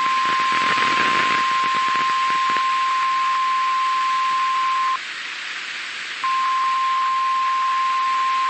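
NOAA Weather Radio warning alarm tone: one steady high beep, about 1050 Hz, over radio hiss. It drops out about five seconds in and resumes a second later, announcing the next spoken warning.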